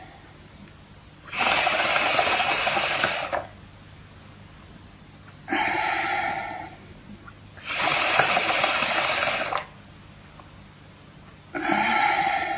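Breathing through a homemade vodka inhaler: each breath drawn through the tube bubbles air through the vodka in the sealed bottle, alternating with longer, louder exhalations. Two full in-and-out cycles.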